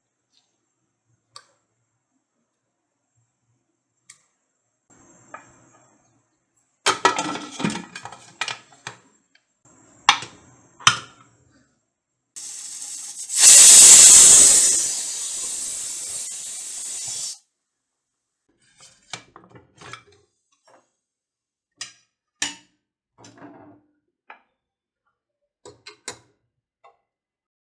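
Pressure cooker whistle: a loud hiss of steam jetting from the weighted valve for about five seconds, peaking early and then dying away. Before it come clanks and knocks of the cooker's metal being handled. After it come scattered light clinks in the steel vessel.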